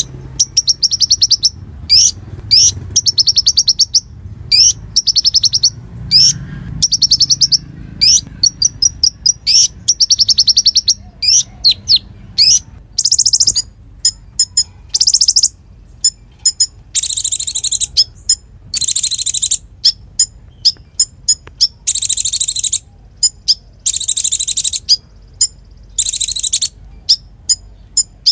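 A konin songbird singing loudly in rapid bursts: fast high trills and quick upward-sweeping notes, each run about a second long with short breaks between, sung continuously in the 'nembak' firing style used as tutor song for other cage birds.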